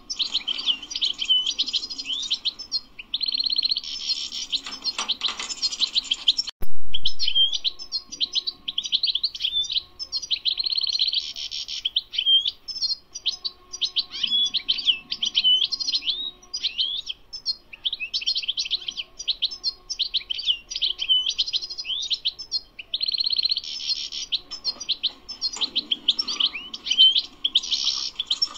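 European goldfinch singing: long runs of fast, high-pitched twitters and trills, broken by short pauses. A single sharp click about seven seconds in.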